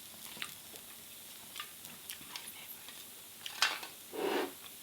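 Light clicks and taps of utensils against the takoyaki pan and dishes, with a louder click about three and a half seconds in, followed by a short duller knock.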